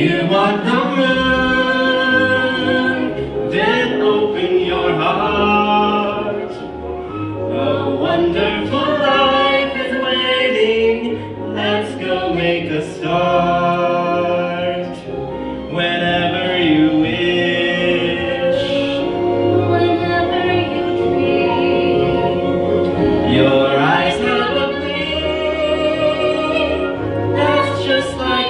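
A girl singing a song with instrumental accompaniment, holding long notes.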